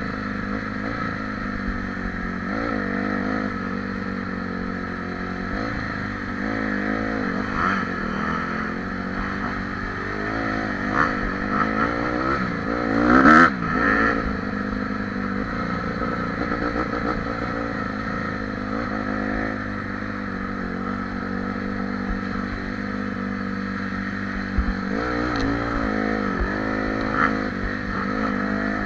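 Dirt bike engine revving up and down as it rides a rough trail, heard close from the rider's position. The strongest rev-up comes about halfway through, with smaller surges before and after.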